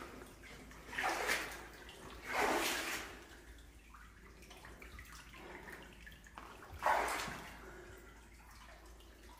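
Water in a flooded mine tunnel: three short watery swishes, about a second in, about two and a half seconds in and near seven seconds, over a faint steady background.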